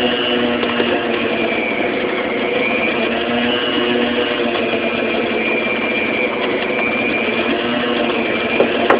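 Electric stand mixer running steadily, its motor driving the beater through pizza dough in a stainless steel bowl.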